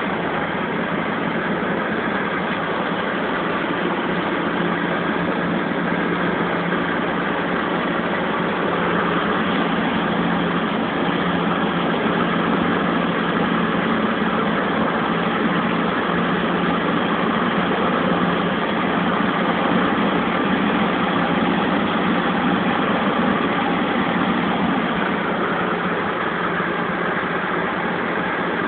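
Light aircraft's piston engine and propeller droning steadily in flight, heard from inside the cockpit.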